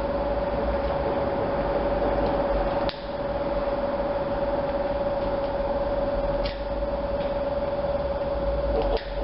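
Steady machinery hum with one constant mid-pitched tone over a low rumble, broken by a few sharp clicks about three seconds apart.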